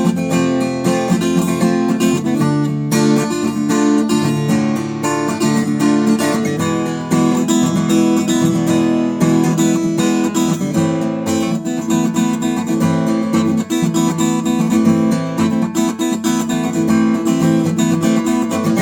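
Newtone Gypsy Road GA 45 acoustic guitar played unplugged, its own acoustic sound with no amplifier: a continuous run of struck chords with no pauses.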